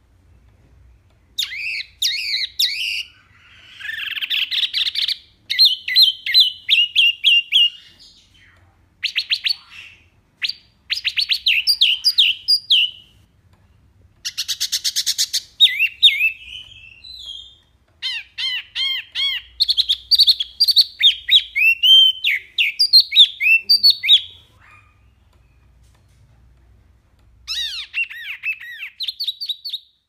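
Caged wambi songbird singing loud, clear, varied phrases of rapid chirps, trills and slurred whistles. There are short pauses between the phrases and a longer lull a few seconds before the end.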